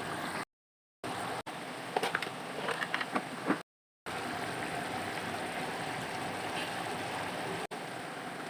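Steady sizzling of food frying in a pan, with a few light clicks of a utensil about two to three seconds in. The sound cuts out completely twice for a moment.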